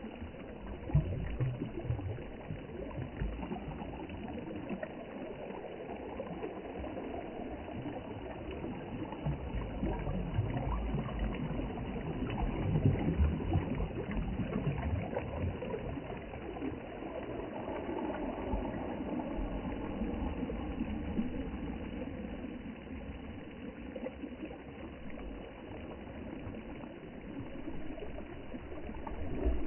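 Sea water washing and surging in slow swells over a low rumble.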